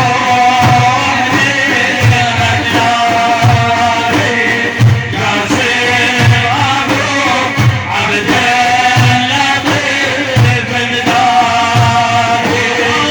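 Arabic religious praise chant (madih) with male vocal melody over music with a repeating low drum beat.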